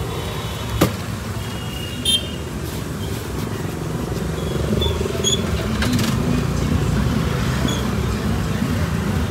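Steady roadside traffic rumble from passing cars and motorbikes, with a sharp click a little under a second in and a brief high chirp about two seconds in.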